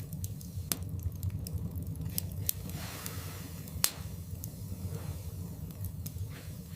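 Wood fire burning in a fireplace: a steady low rumble of the flames with sharp, irregular crackles and pops from the burning logs, the loudest pop about four seconds in.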